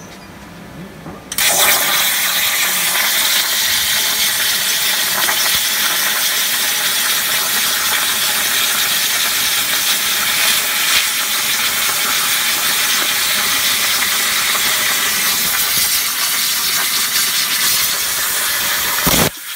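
Plasma cutter torch cutting through galvanized steel spiral duct, a loud steady hiss. It starts suddenly about a second in and cuts off abruptly near the end.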